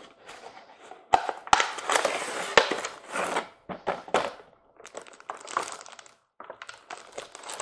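Packaging being handled as a boxed model train caboose is unpacked: irregular crinkling and rustling that stops and starts, with a few sharp clicks.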